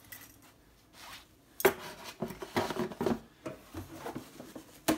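Handling noises as a metal keychain is put away among cardboard gift boxes: a sharp clack about one and a half seconds in, a run of clinks and knocks, and another sharp clack near the end.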